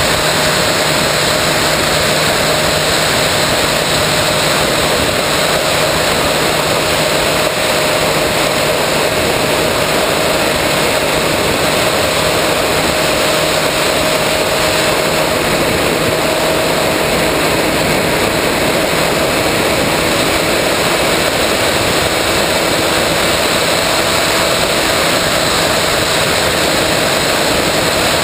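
Electric motor and propeller of a 3 m RC plane running steadily in cruise, heard from a camera on board, with a constant rush of wind over the airframe.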